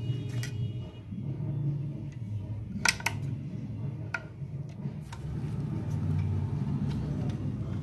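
Small metal clicks and taps from hands working a terminal nut and wires loose inside an opened electric iron, the loudest a quick double click about three seconds in, over a steady low hum.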